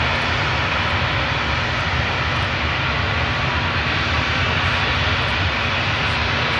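Antonov An-124 freighter's four turbofan engines running on the runway just after landing: a steady, even jet noise with a faint low hum under it.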